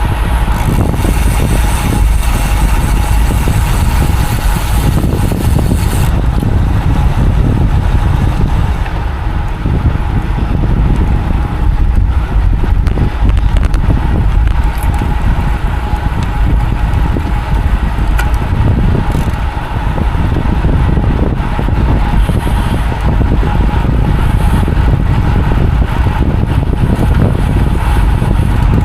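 Steady wind rush and road noise on the microphone of a road bike being ridden fast.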